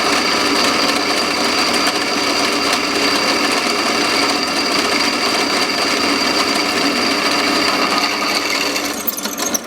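Large drill press running and drilling steel, a steady machine hum with a high whine from the cut. About nine seconds in the whine stops and the sound drops, with a few clicks.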